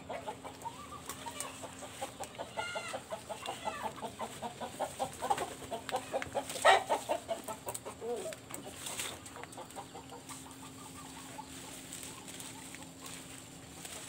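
Chickens clucking in rapid runs, with a few higher calls and one louder call about seven seconds in. The clucking thins out over the last few seconds, leaving a faint steady hum.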